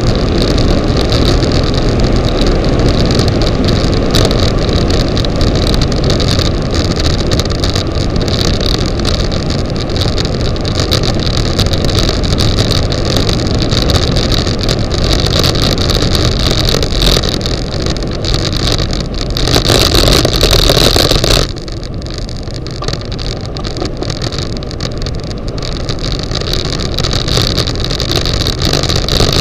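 Wind rushing over the microphone of a camera on a bicycle speeding downhill, with tyre and road noise underneath. About two-thirds through it swells for a couple of seconds, then drops suddenly to a quieter rush.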